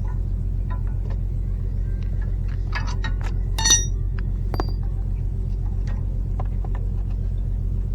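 A steady low engine rumble runs throughout, with light metallic clinks over it and one louder ringing clink of metal on metal about three and a half seconds in.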